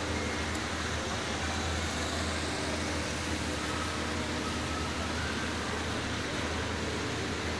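Steady background noise of a large indoor hall: a constant low hum with an even hiss over it and no distinct events.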